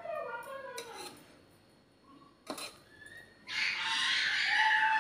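A chicken calling, one harsh call of about a second and a half near the end. About halfway through there is a single sharp metal tap.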